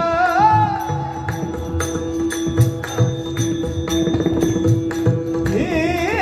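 Kirtan devotional music: a harmonium holds a steady note while a pakhawaj plays a running pattern of strokes. A singing voice slides in pitch about half a second in and again near the end.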